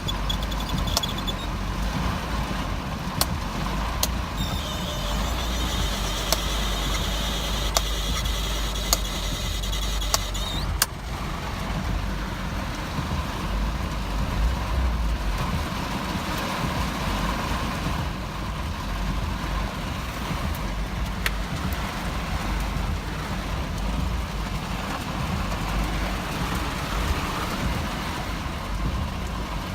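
1985 Mercedes-Benz 190E's four-cylinder engine idling, which the owner calls a rough idle, with a few sharp ticks between about three and ten seconds in. A hiss sits over it from about four seconds in and cuts off at about eleven seconds.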